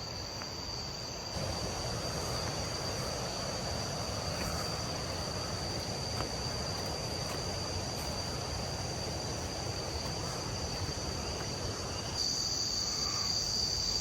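A steady high-pitched drone of insects calling, over an even rushing noise that comes up about a second in.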